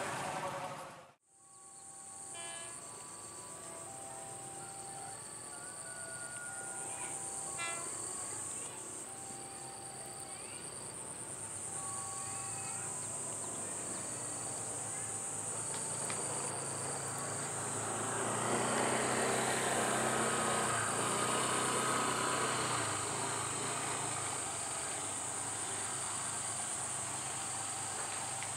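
Insects give a steady high-pitched drone, with short repeated calls in the first half, after a brief dropout about a second in. From about 18 s the low rumble of an approaching KRL Commuter Line electric train builds underneath.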